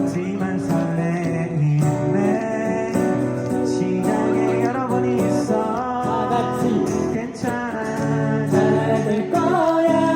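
Live acoustic band performance: acoustic guitar strummed with a singer's voice over it.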